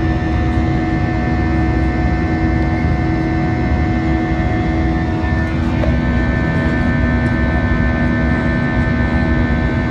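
Steady cabin roar of an Airbus A320-family jetliner climbing out after takeoff: a low rumble from the jet engines with several steady hum tones. About halfway through, the tones step slightly lower in pitch.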